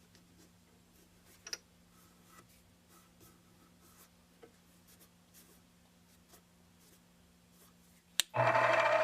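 Faint steady hum with scattered small clicks and taps of handling at the mini milling machine. Near the end a sharp click, then the mill's motor starts with a loud whine that climbs steadily in pitch as it spins up.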